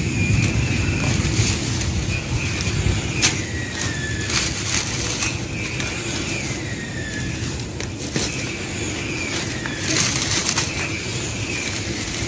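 Dry plant stalks and leaves rustling and snapping in scattered sharp crackles as dried-out plants are pulled up by hand, over a steady low rumble.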